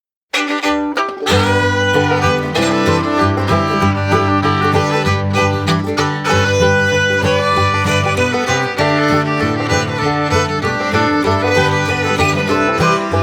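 Lively instrumental music with a steady beat and a fiddle carrying the tune over plucked strings, starting a moment in.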